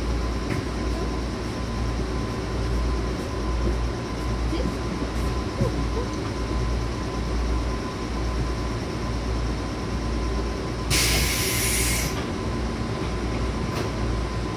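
JNR/JR West 105 series electric multiple unit running: a steady low rumble of wheels and running gear with a faint steady tone. A short hiss lasting about a second comes near the end.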